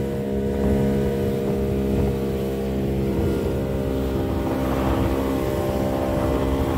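Outboard motor of a small open fishing boat running steadily at speed, with the rush of spray along the hull.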